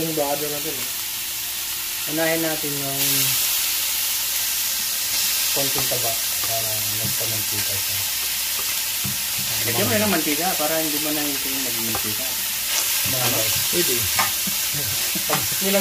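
Onion, ginger and chili frying in a little oil in a metal pot, a steady sizzle that grows louder about three seconds in and again near the end as pieces of beef are added from a bowl. Faint voices talk in the background now and then.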